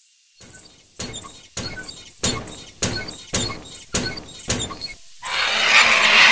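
Background music: a regular beat of sharp percussive hits, then a louder, fuller section comes in about five seconds in.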